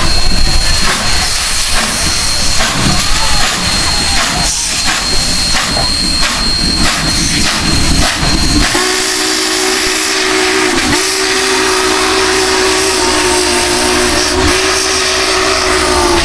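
Union Pacific 844, a 4-8-4 steam locomotive, pulling away with loud hissing steam and exhaust strokes. About halfway through, its deep chime whistle starts blowing in long blasts, broken briefly twice.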